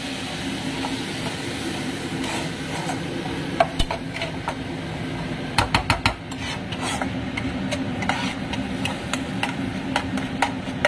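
A metal spatula stirring and scraping wet spice paste in a nonstick frying pan, with sharp clicks and knocks of the spatula against the pan, a cluster of four louder ones about six seconds in. Under it is a steady sizzle of the masala frying, with a low hum.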